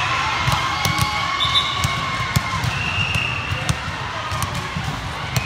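Busy volleyball hall: scattered sharp smacks and bounces of volleyballs from the surrounding courts, over a constant hubbub of players' and spectators' voices with a few short calls.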